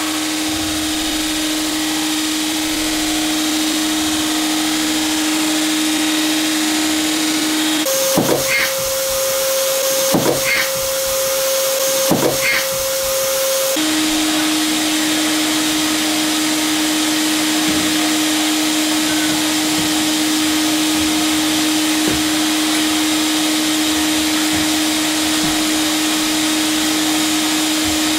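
Canister vacuum cleaner running steadily, its motor holding one even pitch over a rushing hiss. For about six seconds in the middle the motor pitch jumps higher, with three short knocks about two seconds apart, then it drops back to the earlier steady pitch.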